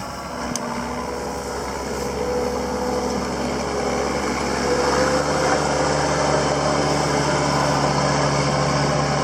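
Skid steer engine running steadily, growing louder over the first few seconds as the machine comes in close.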